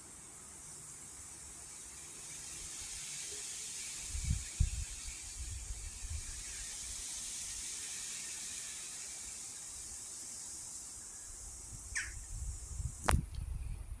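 Strong wind rustling through tree leaves, a steady high hiss, with gusts buffeting the microphone about four seconds in and again near the end. Two sharp clicks come shortly before the end.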